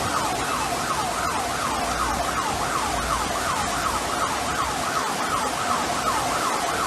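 A siren sounding in quick falling sweeps, about three a second, over a steady rushing hiss.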